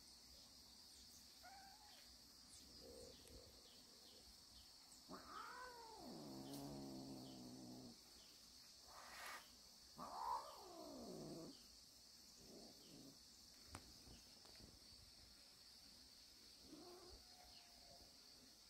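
Cats yowling and growling. There are two long drawn-out calls, about five and ten seconds in, the first sinking into a low held growl and the second gliding down, with a few short faint meows around them.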